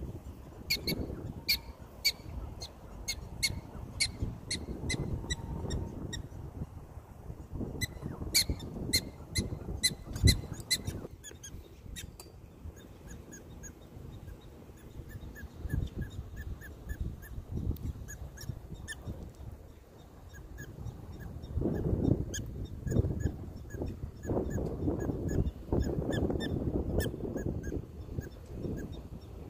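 Prairie dogs calling in a long series of short, high-pitched barks, about two or three a second, the repeated call prairie dogs give as an alarm; from about halfway on the barks turn fainter and lower. A low rumble runs underneath, louder near the end.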